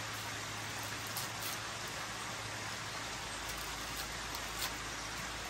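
A steady rushing background noise, like running water, with a few light knife clicks as a red onion is cut over a wooden tray.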